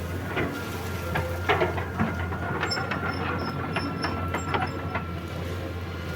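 Excavator's diesel engine running steadily with a high whine over it, and irregular metallic clanks and knocks from the machine working.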